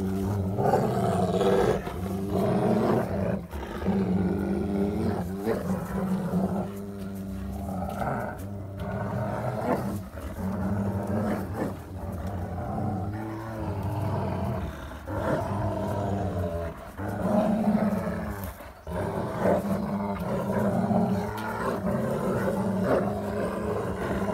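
German Shepherds growling in play while tugging on a rope toy: long, low growls one after another, broken by short pauses.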